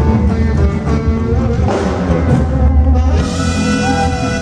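Live band playing loud amplified music, with drum kit, bass and guitar; the sound gets brighter about three seconds in.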